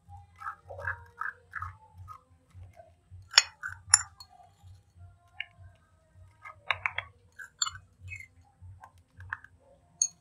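Metal spoon clinking and scraping against dishes as sauce is spooned over meat, with two sharp clinks about three and a half and four seconds in. A low pulsing hum runs underneath.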